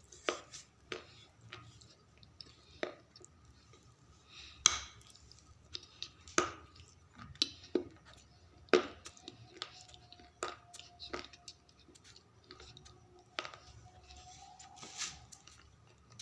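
Slate pencils being bitten and chewed close to the microphone: irregular sharp crunches and cracks, one every second or so, with a few louder snaps.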